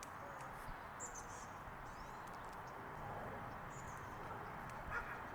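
A few short, high bird chirps, about a second in and again near four seconds, over a steady outdoor background hiss.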